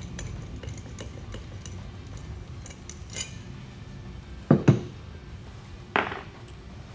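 Metal tools and hardware clinking and being set down on a workbench, with two sharp knocks close together about four and a half seconds in and another about a second later.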